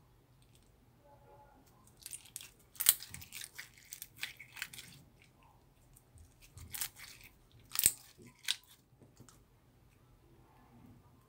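Slime being played with, giving two bursts of sharp crackling pops and snaps, the loudest a few seconds in and again near the end of the second burst.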